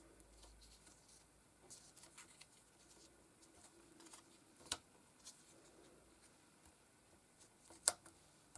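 Faint light taps and rustles of small card jigsaw pieces being handled and set down on a plastic cutting mat, with a sharper click about halfway through and the loudest click near the end.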